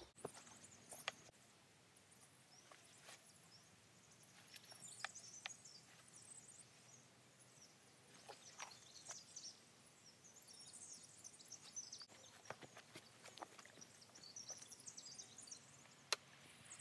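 Near silence: faint outdoor ambience with a few faint clicks and scattered faint high-pitched twittering.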